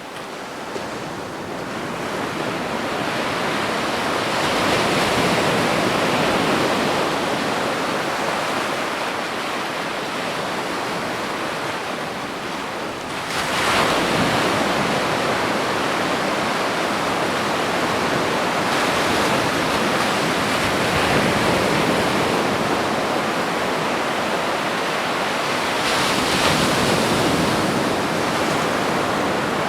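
Ocean waves washing onto a beach, a continuous rush of surf that swells as each wave breaks, with a sharper surge a little under halfway through.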